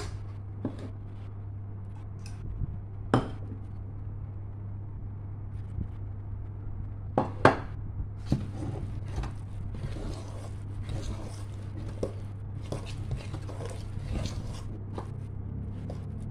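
Hand kneading and squishing a thick flour batter in a metal pot, with scattered sharp knocks against the pot, the loudest about seven seconds in, and busier mixing noise in the second half. A steady low hum runs underneath.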